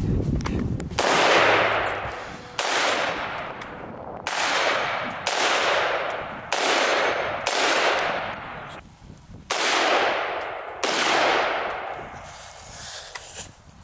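AR-15-style rifle firing about eight single shots, unhurried and one to two seconds apart, each trailing off in a long echo.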